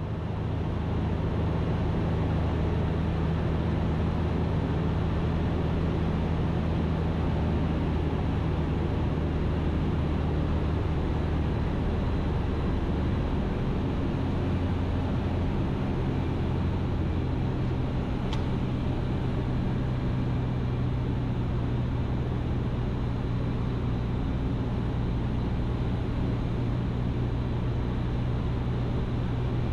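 Ikarus C42 microlight's engine and propeller droning steadily in level flight, heard from inside the cockpit, with the engine note shifting slightly about twelve seconds in.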